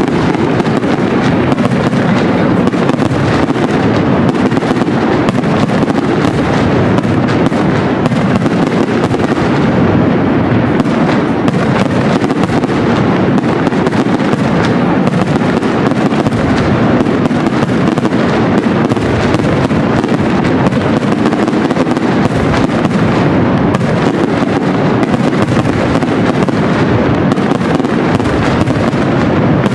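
Aerial fireworks display: a loud, continuous barrage of shell bursts and crackling, the bangs packed closely together without a pause.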